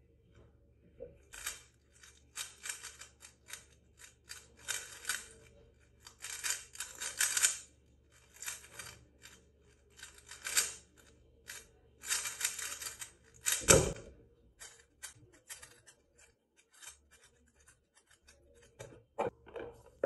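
Rubik's speedcube turned rapidly by hand in bursts of fast plastic clicking and clacking through a solve of about twelve and a half seconds. The solve ends with one louder thud as the cube is set down and the timer is stopped, and a few lighter clicks follow.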